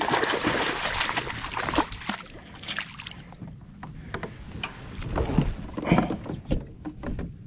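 A small northern snakehead thrashing in a landing net at the water's surface, a burst of splashing for the first couple of seconds. Then the net is lifted out, with dripping and a few knocks as it is swung aboard the kayak.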